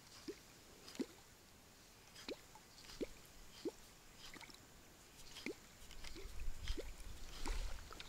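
Faint, irregular small water plops and drips, each a quick rising blip, coming every half second to a second and a half. A low rumble comes up over the last couple of seconds.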